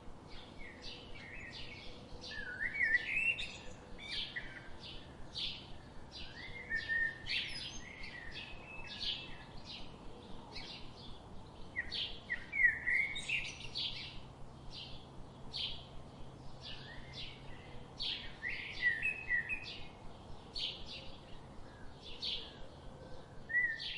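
Several songbirds singing at once: many short, high chirps overlapping with warbled phrases, in a dense chorus.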